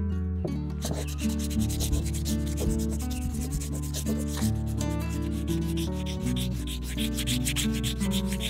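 Sandpaper rubbed by hand over the die-cast metal body of a BMW Z8 model car, smoothing dried body filler in quick back-and-forth strokes, starting about half a second in.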